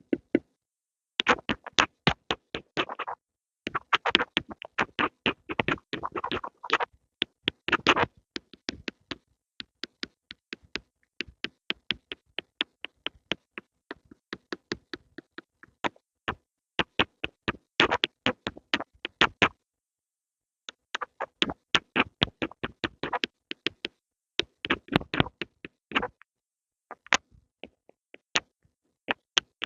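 Pencils tapped in quick runs of sharp taps, several a second, broken by short pauses.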